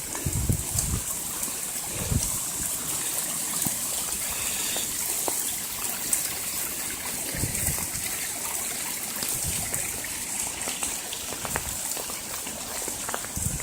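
Rainwater runoff rushing and gushing in a steady flow, with a few brief low bumps.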